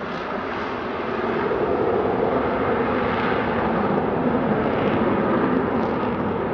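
Jet aircraft engine noise, a continuous rushing roar that grows louder about a second in and then holds steady.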